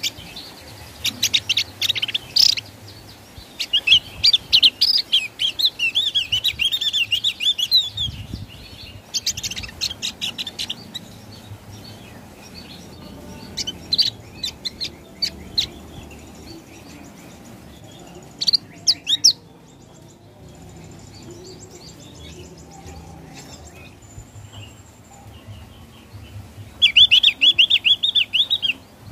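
Javan grey-throated white-eye (opior jawa) singing its clear 'ngeplong' song: bursts of rapid, quavering high chirps a few seconds apart, with quieter gaps between them and a loud burst near the end.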